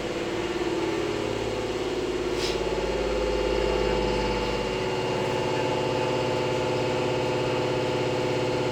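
Steady electrical hum inside an Izuhakone Railway 3000 series electric train, with a low rumble that stops about five seconds in and a brief click about two and a half seconds in.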